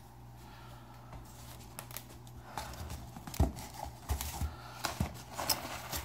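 Packing material in a cardboard shipping box being handled: faint at first, then from about halfway busy rustling and crinkling with several soft knocks.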